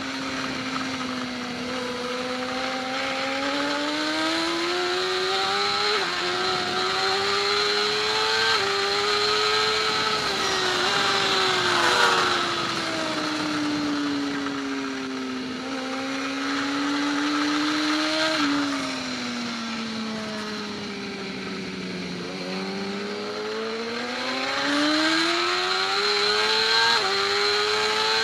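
Racing motorcycle engine running hard on track, its pitch climbing and falling over several seconds at a time, with sudden jumps at gear changes, over steady wind rush.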